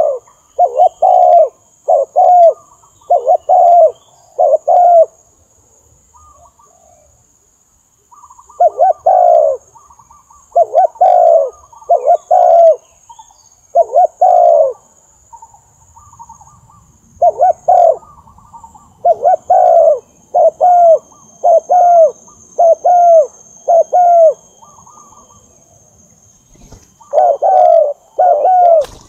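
Spotted dove cooing: phrases of short, deep coos, each phrase a few notes long, with pauses of a few seconds between phrases.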